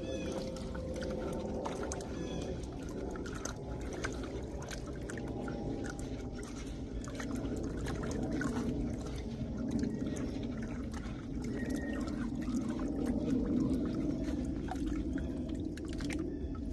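Hands digging and scooping gravel in shallow, muddy creek water to fill a gold pan: continuous sloshing and splashing, with small stones clicking against each other.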